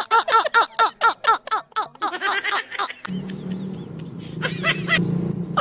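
A man laughing hard in a fast run of short, high-pitched "ha-ha-ha" bursts, about ten in the first two seconds and one more burst just after. From about three seconds in the laughter gives way to a steady low hum.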